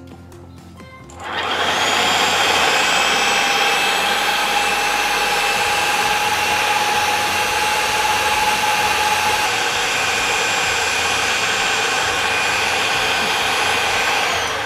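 Electric food processor motor starting about a second in and running steadily with a high whine, its knife blade chopping tomatoes, peppers and onions into a rough blend; it winds down at the very end.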